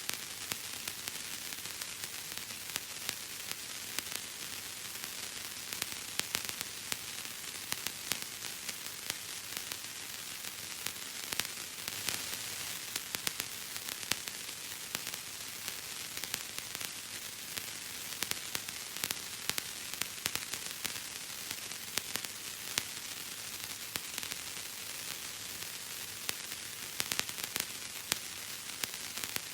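Bubble wrap being popped: small, irregular pops, sometimes several in quick succession, over a steady hiss.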